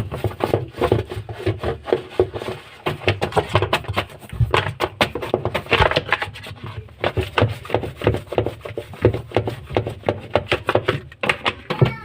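Hand brush scrubbing a washing machine part in quick, repeated rasping strokes.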